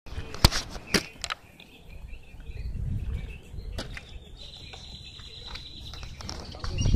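Outdoor ambience: low rumbling wind noise on the microphone, a few sharp clicks in the first second and another about four seconds in, and a thin, steady high-pitched tone from about four seconds on.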